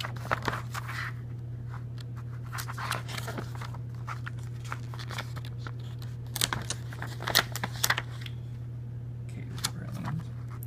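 Glossy printed paper being handled: booklet pages turned and leaflets shuffled, in irregular rustles and crinkles over a steady low hum.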